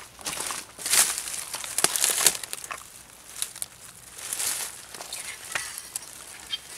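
Dry leaf litter and twigs rustling and crackling under a person moving and kneeling on the forest floor, in irregular short bursts with small snaps.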